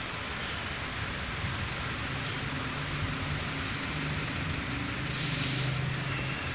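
Steady road traffic noise, with a vehicle engine's hum coming up about two seconds in and growing louder around five seconds in.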